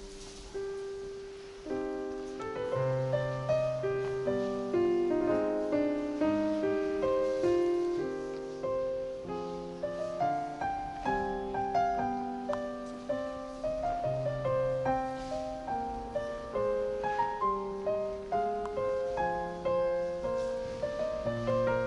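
Background piano music, notes struck one after another over held lower notes.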